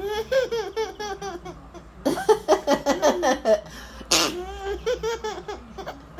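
Young child laughing in repeated bursts, with one short, sharp sneeze-like hiss about four seconds in.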